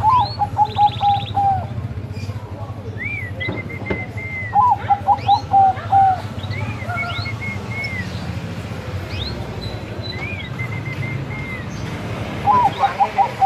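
Bangkok-strain zebra dove (perkutut) singing: three bursts of rapid staccato coos, about seven notes each, at the start, about a third of the way in, and near the end. Thinner, higher chirping calls from other birds come in between, over a steady low rumble.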